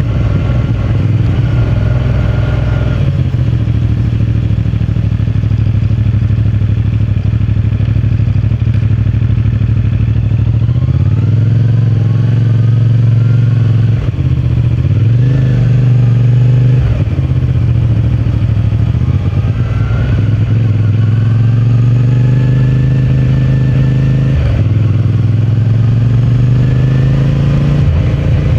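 CFMOTO 450MT's parallel-twin engine and stock exhaust under way. It holds a steady note at first, then from about the middle pulls up in pitch several times, with a quick drop at each gear change.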